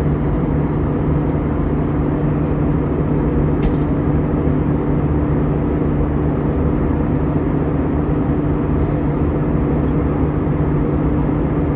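Steady cabin drone inside an Airbus A320-214 in flight: airflow noise and the hum of its CFM56 engines, with a steady low tone running underneath. A faint click sounds a little under four seconds in.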